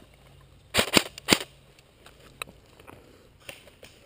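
Airsoft gun firing three sharp shots in quick succession, about a second in, followed by a fainter click.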